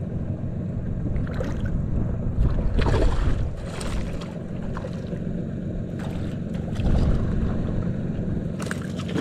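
Boat under way on a river: a steady low rumble of motor and water, with wind buffeting the microphone, swelling louder briefly about three seconds in.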